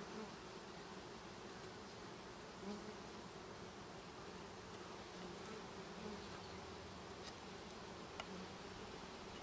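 Honey bees buzzing in flight around a newly installed package hive: a faint, steady hum, with single bees' buzzes now and then standing out above it.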